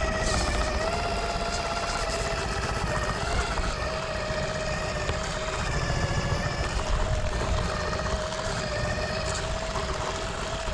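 Losi Night Crawler RC rock crawler's electric drivetrain whining steadily as it crawls over rocks, its pitch wavering slightly, with rough rumbling from the tires and chassis on the stone. Picked up close by a camera mounted on the front of the crawler.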